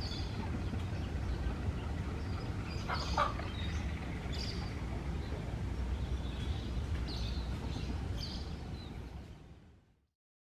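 Steady low rumble of a diesel locomotive running in the distance, with birds chirping over it. The sound fades out near the end.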